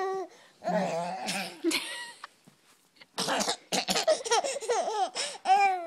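A small child laughing in two runs of short, high-pitched giggles, with a pause of about a second between them.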